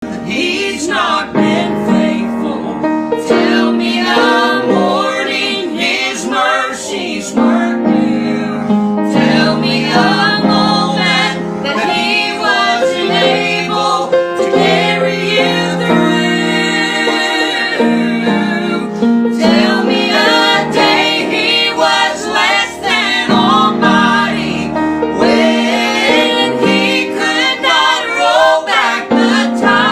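Gospel song: singing over piano or keyboard accompaniment.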